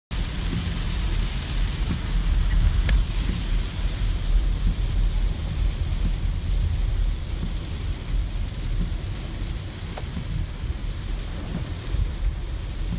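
Car driving through heavy rain, heard from inside the cabin: a steady low rumble of car and tyres on the wet road under the hiss of rain on the car. A single sharp click about three seconds in.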